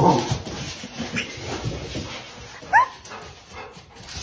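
Golden retriever whimpering: a low bark right at the start, a faint rising whine about a second in, then a short, high yelp near three seconds in.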